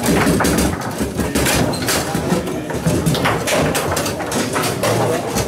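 Table football (foosball) in play: a rapid, irregular run of sharp clacks as the ball is struck by the rod-mounted figures and knocks against the table.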